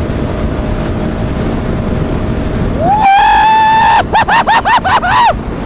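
Steady wind blast on a helmet-mounted microphone at close to 100 mph, with the Husqvarna 701 Supermoto's single-cylinder engine faintly underneath. About three seconds in, the rider lets out a high held whoop for about a second, then a quick run of short high yelps.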